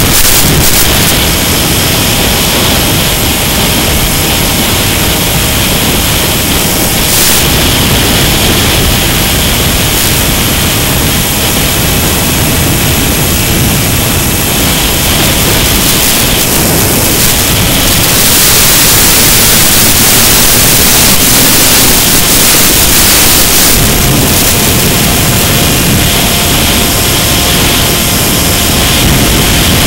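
Loud, steady rushing hiss of air and electric-motor noise from a Mini Skywalker FPV foam plane in flight, picked up by its onboard camera, with a faint steady whine underneath. It grows louder and brighter for several seconds past the middle as the plane banks and speeds up.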